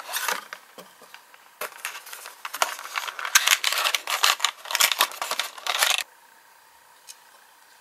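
Cardboard box and plastic packaging of a die-cast toy car being handled as the car is slid out: dense crinkling and clicking, which stops suddenly about six seconds in.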